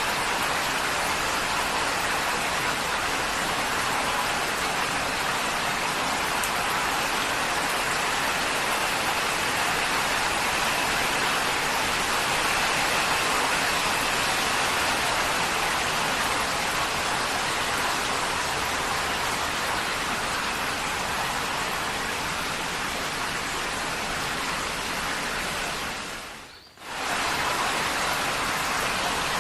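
Heavy rain drumming steadily on a tin roof, a dense even hiss of drops. Near the end it fades out for about a second and comes straight back.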